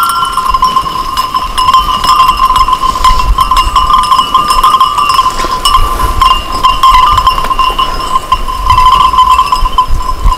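Many sheep bells on a grazing flock jingling together: a steady ringing jangle of bells of similar pitch, scattered with short clinks.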